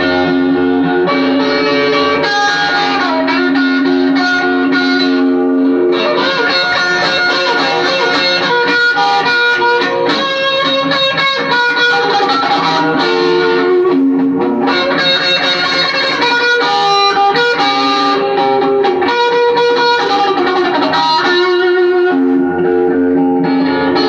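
Guitar music: held notes and chords that change every second or so.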